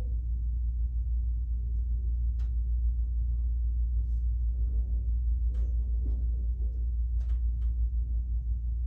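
Steady low background rumble, with a few faint short clicks about two and a half, five and a half and seven seconds in.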